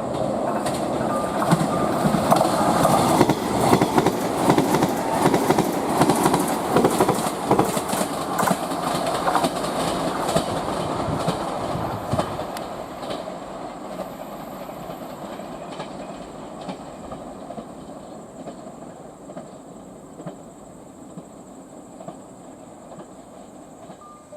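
A train running past at speed, its wheels clacking rapidly over the rail joints, then fading away as it moves off into the distance.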